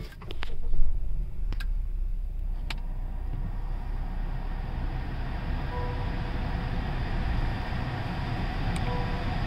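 2019 Honda Accord engine starting about half a second in, then idling steadily, heard from inside the cabin. Two short dashboard warning beeps come near the middle and near the end, as the cluster reports faults from the missing sensor.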